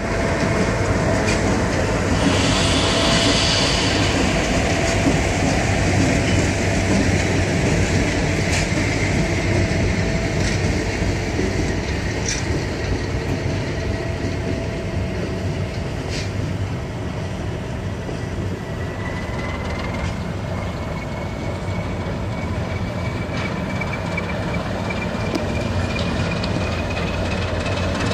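A diesel locomotive runs while pulling a string of freight cars, with a steady low engine hum and rumble and occasional clicks and knocks from the wheels and cars. About two-thirds of the way through, a thin wheel squeal starts and slowly rises in pitch.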